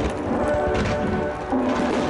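Music over a fireworks display: shells bursting and crackling, with a louder burst about one and a half seconds in.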